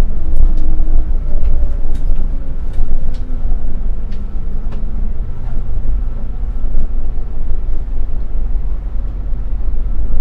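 Cabin noise inside a moving Scania K360iB coach: a steady low rumble of engine and road, with scattered light clicks and rattles.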